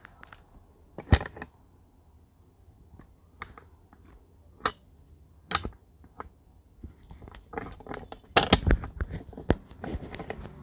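Scattered sharp clicks and taps from a smartphone being handled close to its microphone, with a dense flurry of knocks near the end as the phone is moved.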